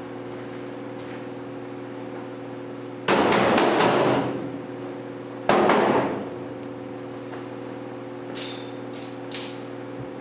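Two loud bursts of banging on the steel Jeep body's sheet metal, about three and five and a half seconds in; the first is a quick run of strikes lasting about a second. A few faint clinks follow near the end, over a steady hum.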